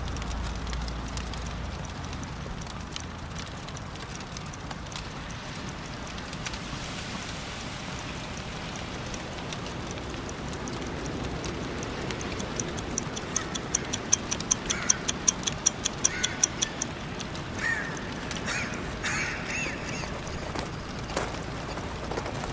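A wristwatch ticking fast and evenly for a few seconds past the middle, over a low rumble and scattered faint crackles. A few short chirps come in near the end.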